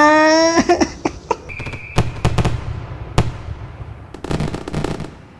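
Fireworks: a loud held pitched tone in the first half second, then scattered sharp bangs and crackling, with a dense run of crackles about four seconds in, dying away at the end.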